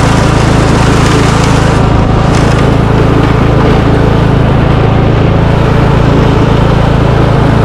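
Riding lawnmower's small engine running steadily at a constant pace, loud and close.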